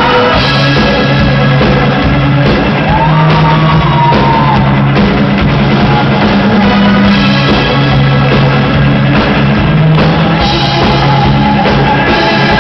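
Live rock band playing loudly: drum kit and a bass line stepping between notes every second or so.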